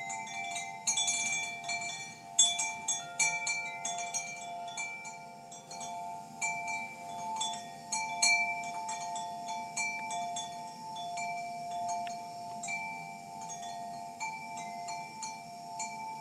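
Ambient music of tinkling, wind-chime-like notes scattered over a steady held chord.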